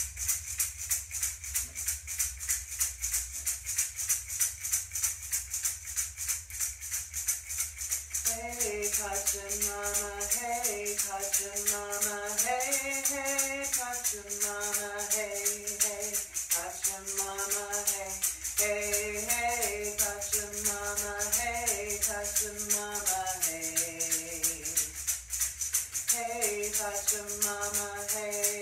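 Hand-held shaker shaken in a steady, quick rhythm. About a third of the way in, a woman's voice joins, singing a wordless chant in long held notes that step up and down, pausing briefly near the end.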